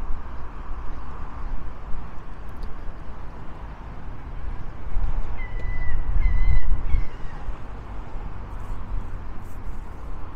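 Wind buffeting the microphone in a low rumble, gusting harder about halfway through, while a bird gives three short calls in quick succession.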